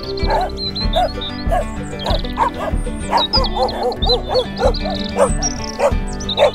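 Background music with a steady beat, with many short puppy barks and yips laid over it, several a second.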